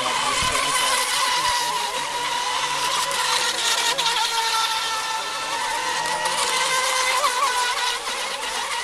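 Electric Mini Mono radio-controlled racing boat running at speed: a steady high-pitched motor and propeller whine that wavers slightly in pitch.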